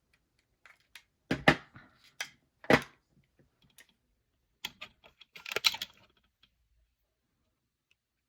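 Irregular clicks and knocks from handling a plastic handheld infrared thermometer. There are a few sharp taps over the first three seconds, a cluster of rattling clicks about five and a half seconds in, then quiet.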